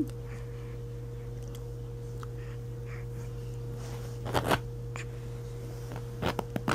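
A steady low electrical-type hum, with a few sharp clicks and knocks: a cluster about four seconds in and several more near the end.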